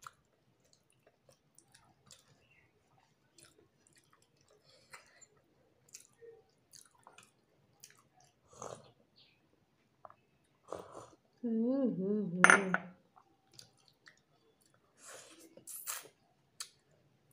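Close-up eating sounds: wet mouth clicks and chewing of food eaten by hand, with a sip of sour lentil soup (tok dal) drunk from a glass bowl about eight seconds in. A little past halfway comes a short wavering hummed voice sound and a sharp click, the loudest moment.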